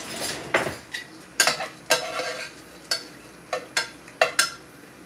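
A metal utensil stirring food in a cooking pot and knocking against its sides: about eight sharp, irregular clinks, some ringing briefly.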